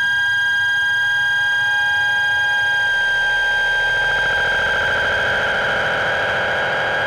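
Modular synthesizer drone: several steady high tones held together, with a warbling swell that grows louder from about halfway through.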